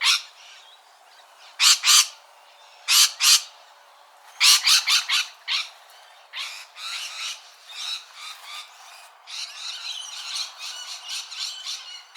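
Parrot squawking: loud harsh screeches, some in pairs, and a quick run of several about four and a half seconds in, then softer, rapid chattering calls through the second half.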